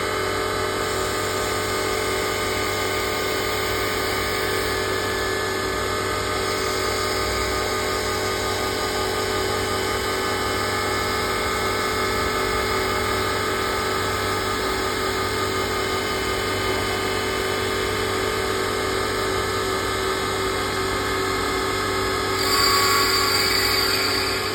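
Small CNC woodworking lathe running, a steady machine hum with held tones. About 22 seconds in a louder, higher-pitched cutting sound comes in for a couple of seconds as a tool works the wood.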